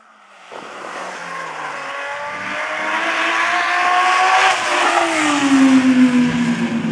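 A car driving past at speed: its engine note builds as it approaches, then the pitch falls as it goes by, about five seconds in.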